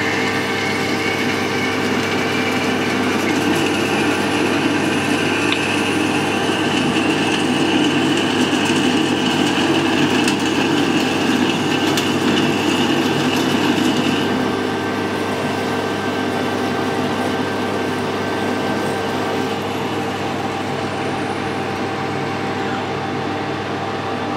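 Metal lathe running while a twist drill in the tailstock bores into a spinning bar of hex steel: a steady machine hum under the grinding noise of the cut. A high whine rides on top and stops about halfway through, after which the cutting carries on a little quieter.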